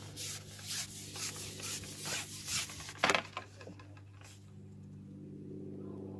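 Handling noise from a fishing pole being lifted and taken apart: a run of short rubbing and scraping sounds, the loudest about three seconds in, then it goes quiet, over a steady low hum.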